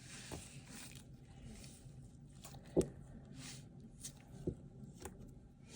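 Squishy foam toys being handled close to the microphone: soft rustling and squeezing noises with a few light knocks, the sharpest a little under three seconds in and another about four and a half seconds in.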